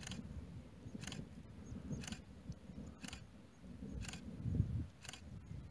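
Camera shutter clicking about once a second as a time-lapse is shot, over a low rumble that swells about four and a half seconds in.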